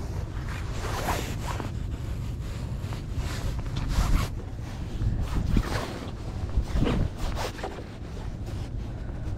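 Irregular rubbing and rustling handling noise close to the microphone, in several short scrapes, over a steady wind rumble.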